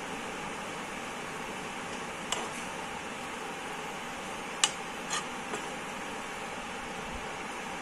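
A spatula stirring penne in a non-stick frying pan, knocking against the pan a few short times, over a steady hiss.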